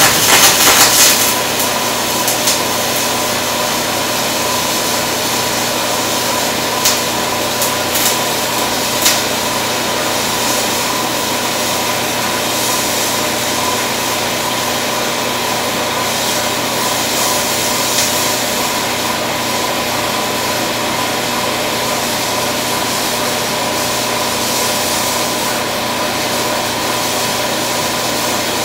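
MIG welding arc running a spray-transfer fill pass on a 3/8-inch steel plate groove joint in 98% argon / 2% CO2: a steady, even hiss. A few sharp crackles come in the first second and again around seven to nine seconds in.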